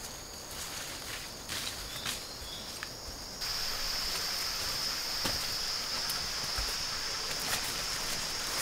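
Steady high-pitched drone of jungle insects, louder from about three seconds in, with a few short bird chirps early and the occasional footstep and rustle of leaf litter underfoot.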